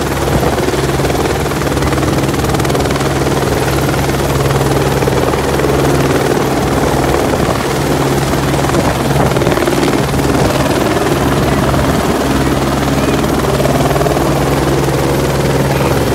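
Small helicopter hovering low overhead, its rotor and engine running steadily.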